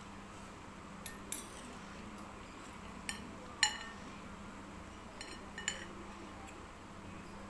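Eating utensils clinking against a dish of instant noodles: about six short, sharp clinks in small pairs, the loudest about a second in.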